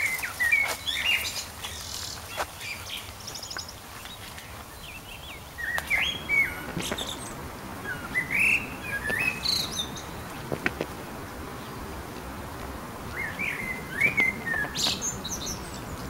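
Birds chirping in short, quick phrases that come in several separate bursts, with a few sharp clicks in between.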